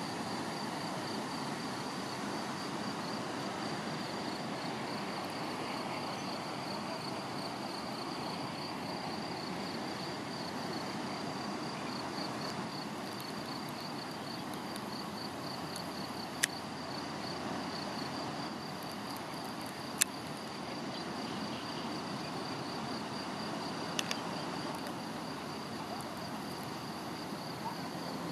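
An insect trilling steadily on one high pitch, in a rapid run of even pulses, over a soft outdoor hiss. Three short sharp clicks come in the second half.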